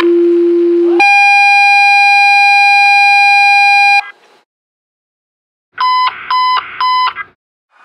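Two-tone sequential fire dispatch alert tones paging the station to a call: a lower steady tone for about a second, then a higher tone held for about three seconds. After a short pause come three short, higher beeps.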